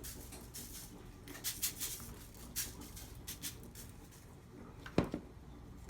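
Garlic powder being shaken from a spice shaker: a series of quick, dry shakes over the first few seconds, then a single sharper knock about five seconds in.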